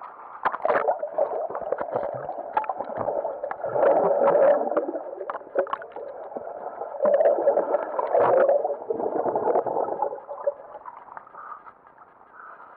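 Water sloshing, splashing and gurgling around a waterproof camera held at the water's surface, which goes under and comes back up. Surges of sloshing with many small splashes, dying down near the end.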